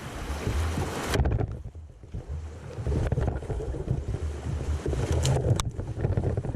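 Rushing river water in rapids, with wind buffeting the microphone as a steady low rumble. The hiss of the water drops away sharply about a second in and returns about two seconds later.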